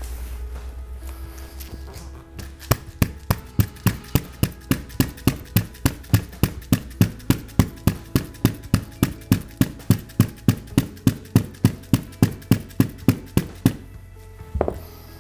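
Dead-blow mallet tapping the rubber fillet strip of a windscreen seal, a rapid run of even taps, several a second, for about eleven seconds starting a couple of seconds in. The taps walk the strip round the glass to seat it fully and tighten the seal.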